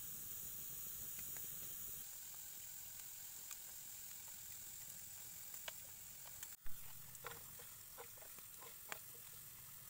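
Faint steady hiss of a wood fire with bamboo tubes steaming over it, with a few small crackles. A little past the middle the sound changes abruptly with a sharp click, followed by soft scattered clicks as pieces of marinated chicken are laid into a frying pan by hand.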